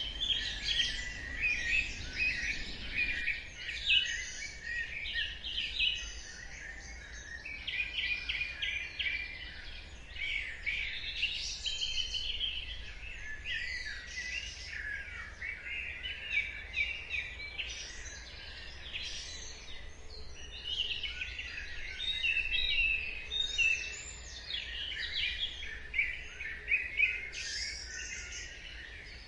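Dawn chorus: many songbirds singing at once, a dense overlap of chirps, quick trills and whistled notes, over a faint low rumble.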